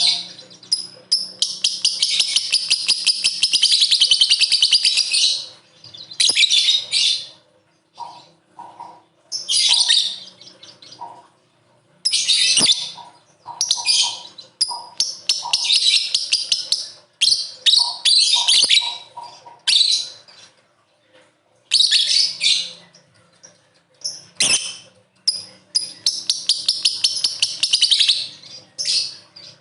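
Lovebird singing its 'ngekek' chatter: long runs of very fast, high chattering notes in repeated bouts with short pauses, the longest bout about four seconds.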